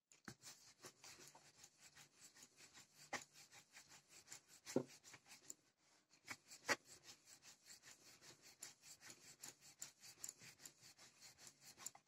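Wooden rolling pin rolling out maida dough on a round wooden board: a faint, quick run of rubbing strokes with a few louder wooden knocks in between and a short pause about halfway through.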